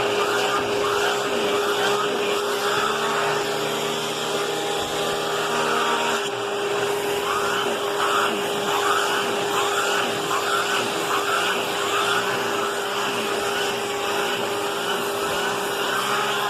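Vacuum cleaner running steadily with a turbo brush nozzle on a bed sheet: a constant motor whine under a rushing air noise, with a higher note that rises and falls again and again.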